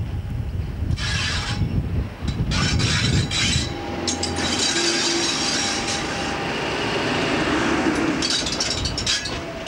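A Class 50 diesel locomotive, its English Electric engine running, passes close by on the adjacent track with a heavy rumble of engine and wheels. About four seconds in the body of the locomotive goes by, and its coaches follow near the end.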